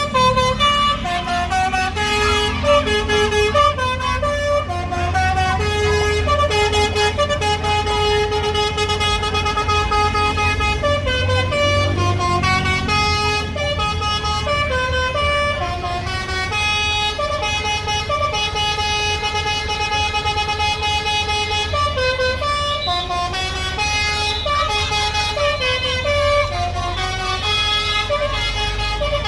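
Indonesian bus 'telolet' Basuri musical horn playing a tune: a long run of held and stepped notes, the pitch moving up and down, over a steady low rumble.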